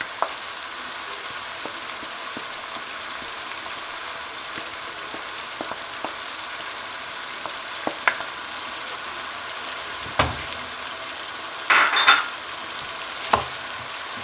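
Onions frying in hot oil in a non-stick pan, sizzling steadily. Crushed tomato, green chilli and ginger-garlic paste are tipped in and worked with a wooden spoon, giving a few sharp knocks against the pan and a short clatter near the end.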